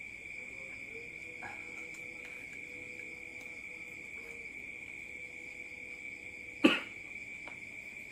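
A man coughs once, short and sharp, a little before the end while eating very spicy chicken feet, with faint mouth sounds before it. A steady high-pitched whine runs underneath.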